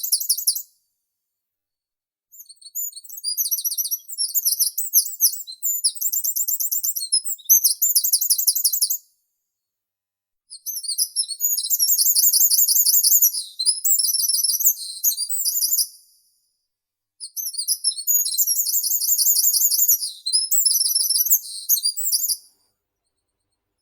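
A meadow songbird singing long songs of rapid, very high chirps and trills. Three songs of about five to six seconds each, separated by short silent pauses.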